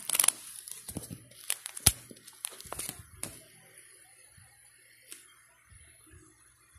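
Plastic coin album being handled and laid down: a crinkle of plastic at the start, then a series of light clicks and taps, the sharpest about two seconds in, quieter after about three and a half seconds.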